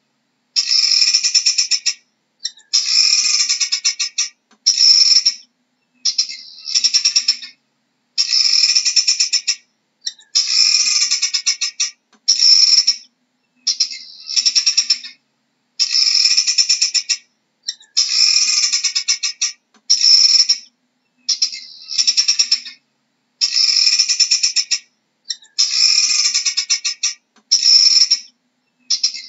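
Helmeted guineafowl calling over and over: runs of rapid pulsed notes, each about half a second to a second and a half long, one after another every second or two with short silent gaps.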